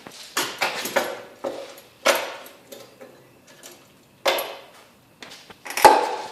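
Metal clamps being repositioned and tightened on a workpiece: irregular clanks and knocks, the loudest near the end.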